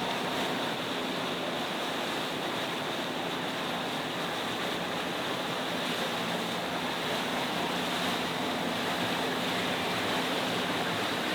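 Steady rush of wind and moving water, with a faint low engine drone underneath.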